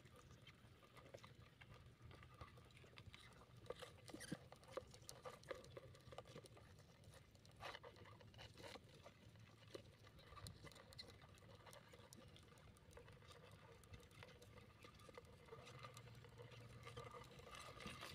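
Faint, scattered ticking and scratching of crab legs and claws on a plastic tub, over a low steady hum.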